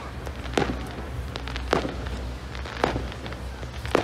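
Fireworks exploding: four sharp bangs about a second apart.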